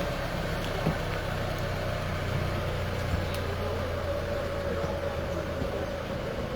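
Car engine idling steadily, heard from inside the cabin: a low hum with a faint steady whine above it. A single click about a second in.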